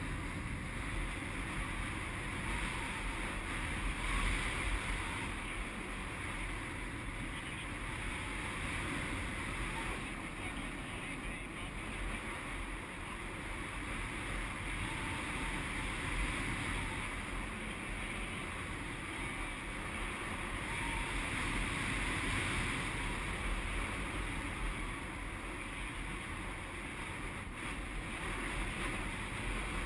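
Steady airflow rushing over a GoPro HD 960 camera's microphone in paraglider flight, a constant wind noise with a low buffeting rumble.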